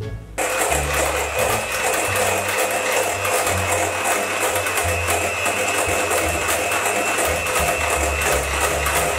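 Electric hand mixer switched on about half a second in and running steadily with a constant whine, beating egg whites in a metal bowl. Background music plays underneath.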